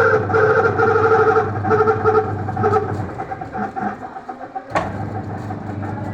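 An old LG washing machine's electric motor running with a pitched whine that pulses and fades over the first three seconds, over a steady low mains hum. About five seconds in there is a sharp click, and the hum starts again.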